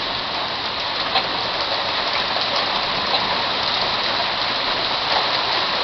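Heavy rain falling: a steady hiss with a few faint drop ticks.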